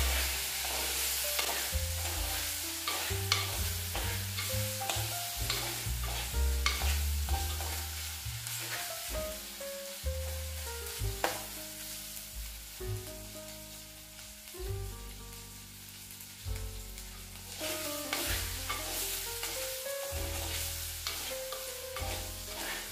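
Boiled chicken pieces frying and sizzling in oil in a clay pot, stirred with a metal spoon that scrapes and clicks against the pot, over soft background music.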